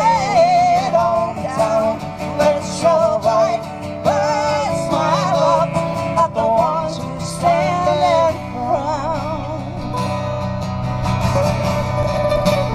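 A woman singing with wide vibrato over acoustic guitar, in long, held lines with no clear words; the voice eases off about eight seconds in, leaving mostly the guitar.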